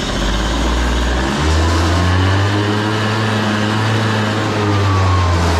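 2001 Yamaha Vino's small two-stroke scooter engine, freshly started on a rebuilt carburetor, given some throttle. About a second and a half in the revs rise to a higher, steady speed and hold there, easing off near the end.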